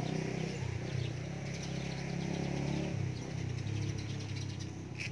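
A low, steady motor hum with faint bird chirps.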